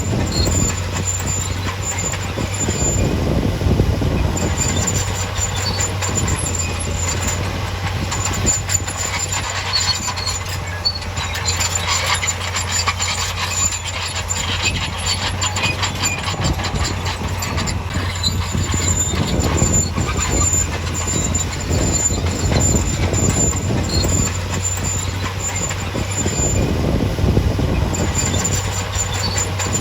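Bulldozer working: its diesel engine runs steadily under the clanking and squealing of its steel crawler tracks.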